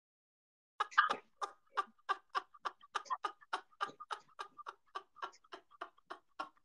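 Men laughing hard in a quick run of short 'ha' bursts, about four a second, starting about a second in after dead silence.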